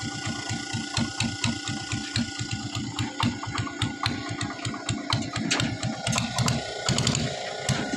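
Small boat engine running with a fast, even thudding of about six beats a second under a steady hum; the hum drops away about seven seconds in. Light clicks and taps sound over it.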